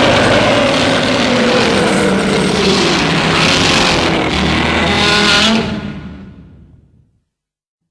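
A loud monster sound effect from the Heisei-era Godzilla films: a dense, rumbling, screeching tone with several pitches that slowly fall. It fades out over about a second and a half, about six seconds in.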